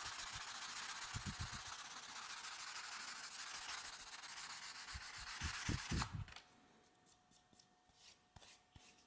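Wooden chisel handle being rubbed down by hand: a steady scratchy rubbing with a few dull bumps, stopping about six seconds in, after which only faint light clicks remain.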